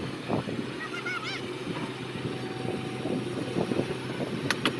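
Excavator's diesel engine running steadily, with a few short high chirps over it about a second in and again near the end.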